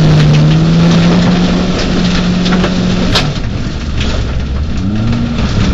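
Peugeot 206 rally car's engine heard from inside the cabin, pulling hard with its pitch rising slowly, then easing off about three seconds in to a low rumble before picking up again near the end. Gravel and stones tick and knock against the underbody, with one sharper knock as the engine eases off.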